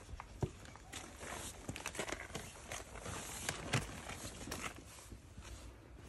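Footsteps on paving stones: an irregular scatter of scuffs and taps.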